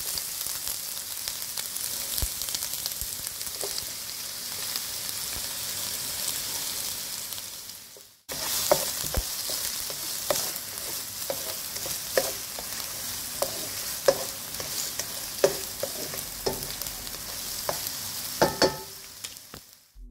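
Diced red onion and garlic sizzling in hot oil in a nonstick pan, stirred with a wooden spatula. The sizzle cuts out briefly about eight seconds in, then carries on with scattered clicks of the spatula against the pan.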